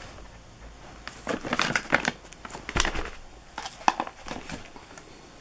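Cardboard firework barrage cakes being handled and shifted by hand, with crinkling rustles and light knocks that come in three clusters, the sharpest about two and four seconds in.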